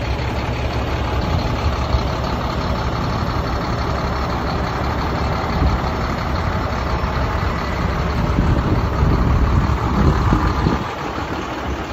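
Ottawa 30 yard truck's diesel engine idling with a steady low rumble. It swells for a couple of seconds near the end, then drops back.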